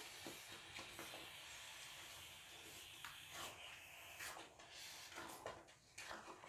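Silicone spatula stirring and scraping thick rice-flour porridge in a metal wok, with soft irregular squelches and scrapes as the stiff, nearly cooked batter is folded. A faint steady hiss, from the gas stove, runs underneath and fades about two-thirds of the way through.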